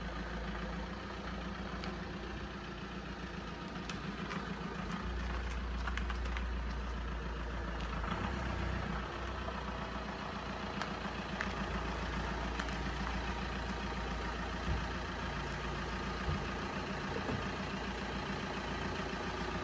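VW Transporter T5 van's engine running steadily at low revs as the van reverses slowly.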